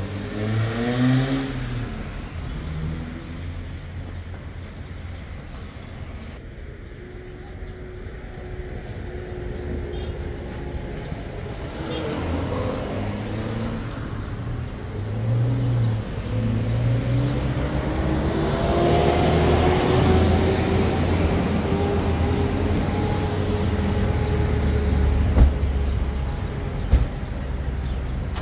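Street traffic: car engines running as vehicles drive by, with engines revving up and rising in pitch at the start and again partway through. Two short knocks near the end.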